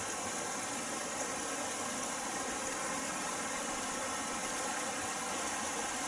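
Shallow mountain stream rushing over stones: a steady, even rush of water.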